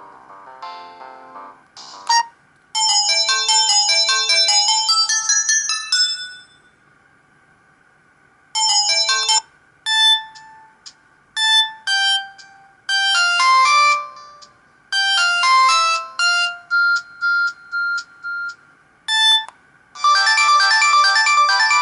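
Samsung GT-E1175T mobile phone playing its built-in polyphonic ringtones: several short electronic melodies one after another, with brief pauses between them and a gap of about two seconds near the first third.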